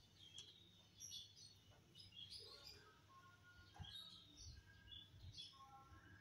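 Faint chirping of small birds: many short, high chirps scattered throughout, over a quiet background with a few soft low bumps.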